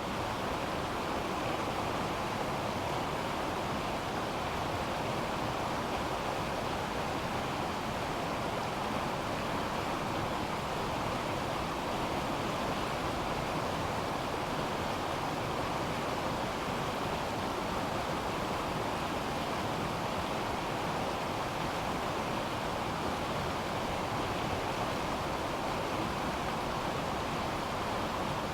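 River water rushing steadily, a continuous even hiss of flowing water with no pauses or distinct splashes.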